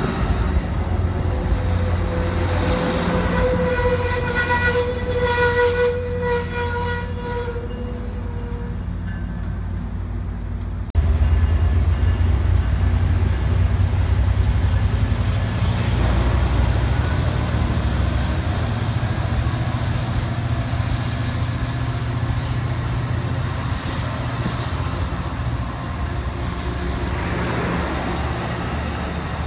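Amtrak Surfliner's EMD F59PHI diesel locomotive running beside the platform with a steady low drone as the train pulls out. A held tone sounds for a few seconds near the start. About eleven seconds in, the engine abruptly gets louder and a thin high whine rises slowly in pitch.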